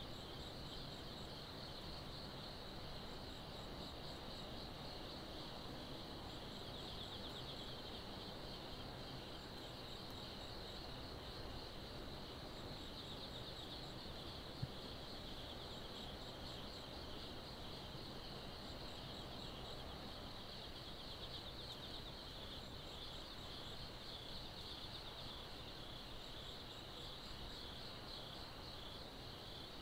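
Night insect chorus: crickets trilling steadily in a high pulsing band, while another, higher-pitched insect gives short chirp runs about every three seconds, over a low steady background rumble. A single sharp click about halfway through.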